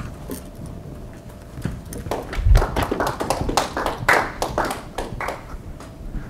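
A few people clapping briefly: the clapping starts about a second and a half in and fades after a few seconds, with a dull thump near its start.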